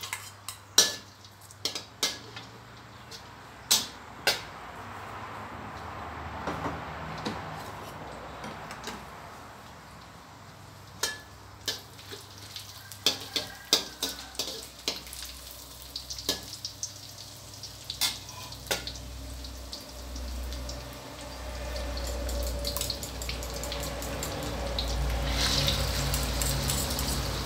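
Minced garlic sizzling in hot lard in a stainless steel wok, with a metal spatula clacking and scraping against the wok many times over a low steady hum. Near the end, beaten egg poured into the hot fat sets off a louder sizzle.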